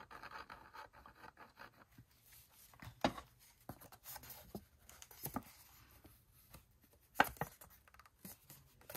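Paper rustling and crinkling as a folded paper pocket is glued and pressed together by hand, with scattered light clicks and taps; the sharpest come about three, five and seven seconds in.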